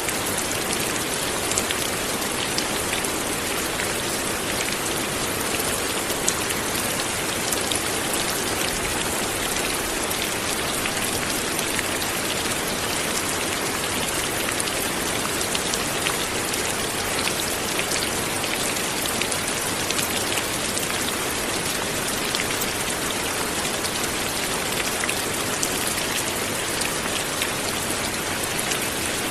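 Light rain falling steadily, with many small drops pattering on a surface.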